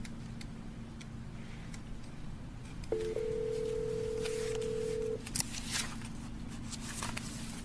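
Desk telephone: a dial tone starts about three seconds in and holds steady for about two seconds, then a few sharp clicks follow as the number is keyed in, over a low steady hum.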